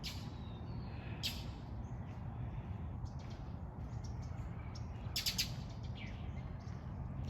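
A peachick's short, raspy wheezing calls: one at the start, another about a second later, a quick run of three or four about five seconds in, and fainter ones between. The owner takes the wheezing for a chick that has lost its mother.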